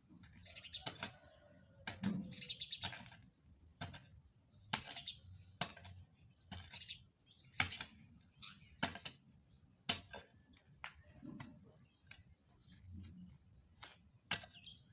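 Repeated sharp strikes and scrapes of a hand tool chopping into soil while weeding, irregular, roughly one every half second to a second, with birds chirping faintly.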